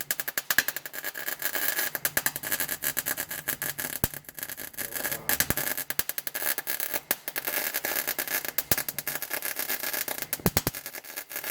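Electric arc welding on a car chassis: the arc crackling and spitting in a dense, irregular run, with a short break near the end.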